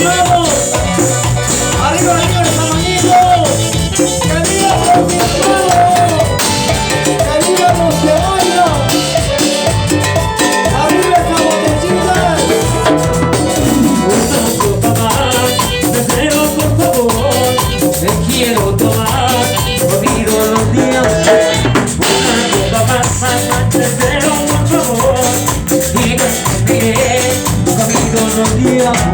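Instrumental chicha music from a band: a wavering melodic lead over a steady dance beat with shakers.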